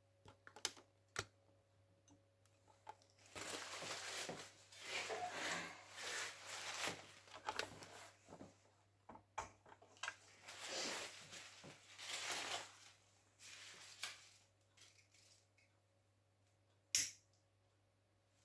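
Paper being crumpled and rustled in several stretches, with a few sharp clicks and knocks in between and one more sharp click near the end: newspaper being readied to push into the stove's flue and burn to warm the cold chimney.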